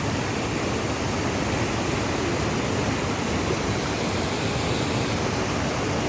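Flowing water rushing as a steady, unbroken noise.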